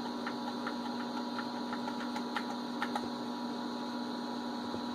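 Steady electrical hum from a running vintage PC and CRT monitor, with light, irregular ticking clicks, a few a second, that stop about three seconds in.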